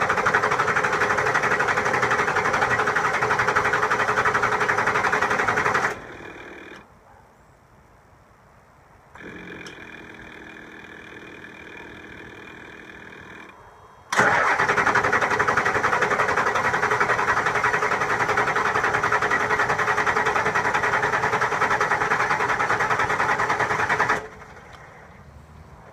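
7.3 Powerstroke V8 diesel cranking on its starter without catching, in two long attempts of about six and ten seconds that each stop abruptly, with a quieter steady hum between them. It is a hard start after an injector O-ring job, while the oil in the cylinder heads repressurizes.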